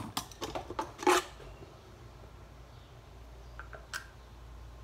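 A few short clicks and knocks from a plastic prop rifle part and a screwdriver being handled, the loudest about a second in, with a couple of faint ticks near the end.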